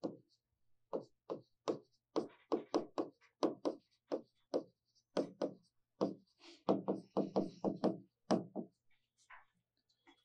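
Chalk tapping and scraping on a blackboard as words are written by hand: a quick, uneven run of short taps, thinning out near the end.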